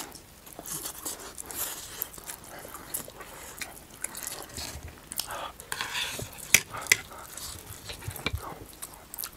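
People slurping and chewing Chapagetti instant noodles, with irregular wet mouth smacks and clicks. Two sharper smacks come about two-thirds of the way through.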